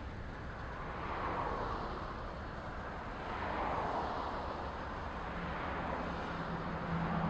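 Double-stack intermodal freight train rolling past: a steady rush and rumble of steel wheels on rail that swells and fades about every two to three seconds. A low steady hum joins in near the end.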